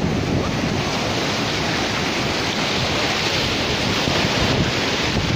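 Sea surf breaking and washing up over the sand in a steady rush, with wind buffeting the microphone.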